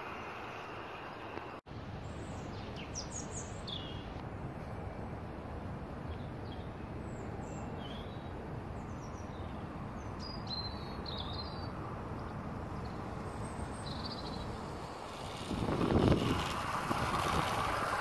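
Birds chirping over a steady outdoor background noise. Near the end the Bachmann Class 150 model train's motor and wheels on the rails grow louder as it runs past close by.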